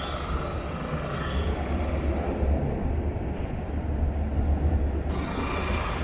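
Outdoor city street ambience: a steady low rumble, with the higher sounds dropping away for about three seconds in the middle.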